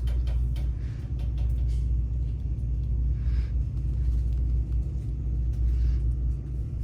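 A steady deep rumble that eases slightly near the end, with faint scattered ticks over it.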